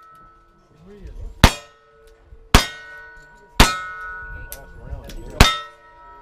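Four gunshots about a second apart, with a longer gap before the last, each followed by the ringing of a struck steel target.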